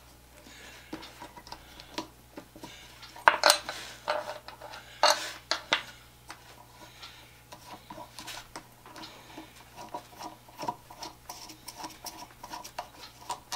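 Light metallic clicks and clinks of fingers working the collet nut and bit of a Dremel rotary tool, with a few louder clatters about three and a half and five seconds in.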